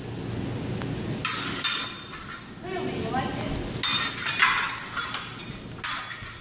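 Steel epee blades clashing and scraping in a fencing bout: three quick flurries of metallic clinks, about a second in, around four seconds in, and near the end.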